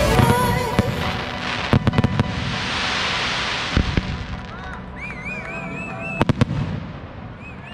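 Fireworks: a cluster of sharp bangs from shells bursting, then a spell of crackling hiss, then more single bangs. Warbling whistles come in from about five seconds in.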